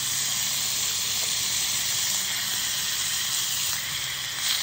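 Meat searing in a skillet over a wood fire, sizzling and hissing with steam after a splash of wine has gone into the hot pan. A brief louder crackle near the end.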